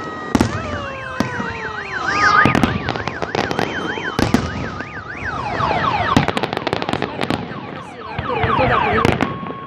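Fireworks display: repeated sharp bangs and crackling, with whistling shells whose pitch glides down. About a second in, a fast up-and-down warbling tone, like a car alarm, rises above the bangs for a couple of seconds.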